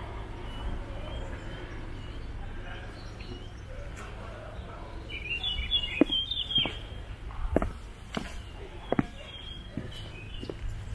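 Small birds chirping over a steady low background noise, with a brief cluster of chirps about halfway through. Footsteps on a gravel path start just after that and go on at an even walking pace.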